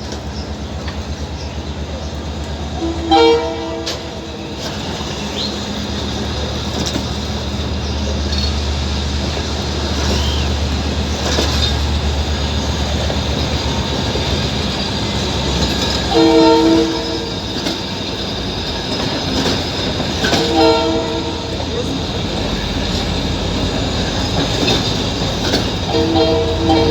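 Train running with a steady rumble, sounding its horn in short blasts of about a second each: once a few seconds in, twice around the middle, and once more near the end.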